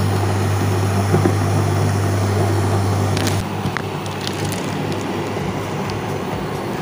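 Water at a rolling boil bubbling in a steel pot on an induction cooktop, with a low steady hum that drops away about three and a half seconds in.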